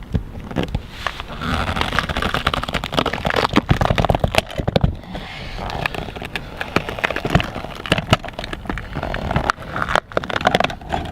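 Irregular scraping and crackling as old putty sealant is worked loose around the base of an RV's rooftop TV antenna, with many small clicks throughout.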